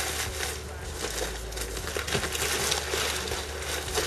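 Plastic packaging crinkling and rustling irregularly as a package is unwrapped by hand.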